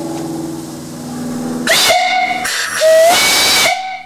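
Antique steam whistle on a fire-tube boiler at about 90 psi, blown twice: a short blast about a second and a half in, then a longer one of about a second that slides up in pitch as it opens. Each blast is a loud shrill tone over rushing steam hiss.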